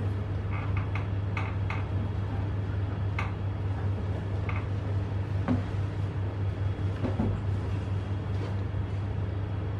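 Steady low electrical hum with scattered light clicks from a laptop being operated, about eight in all at irregular intervals.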